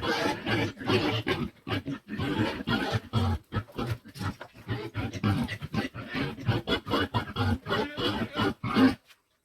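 Pig grunting over and over while feeding on carrots, a rapid, irregular run of short grunts and chomping sounds that breaks off just before the end.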